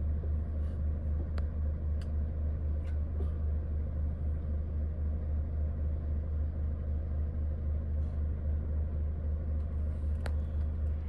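Van engine idling, heard from inside the cab as a steady low rumble, with a few faint scattered clicks.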